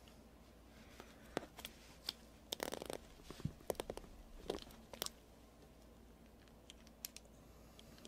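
Hand crimping tool being worked onto a ring terminal on speaker wire: scattered sharp clicks and a short rattle of metal and plastic in the first five seconds, with a couple more clicks near the end.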